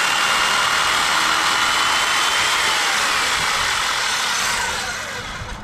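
Porter-Cable circular saw driving a Hercules beam-cutter chain and bar, cutting through a wooden beam with a steady high whine. About two and a half seconds in, the trigger is released and the whine falls in pitch as the motor and chain coast down.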